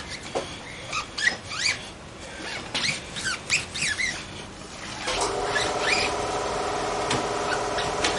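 Lubed rubber of a new Michelin Starcross front dirt-bike tyre squeaking against the wheel rim as the bead is worked on: many short squeaks, each rising in pitch. About five seconds in, a motor starts and runs with a steady hum.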